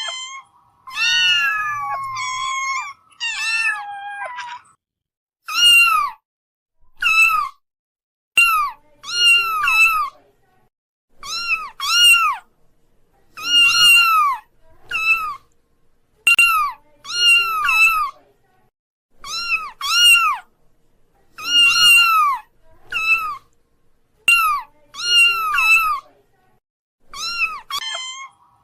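Kittens meowing over and over: short, high-pitched meows about once a second, each rising and then falling in pitch, with brief pauses between them.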